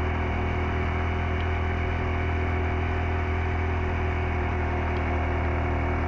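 Motorcycle engine running at a steady pitch as the bike is ridden along.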